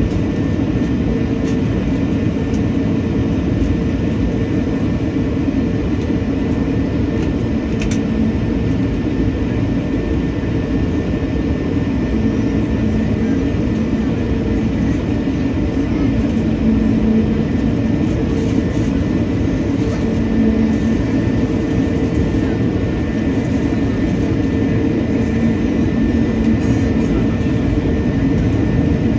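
Cabin noise of an Airbus A220-300 taxiing after landing: the steady hum of its Pratt & Whitney PW1500G geared turbofans at low thrust, with a thin steady whine above it.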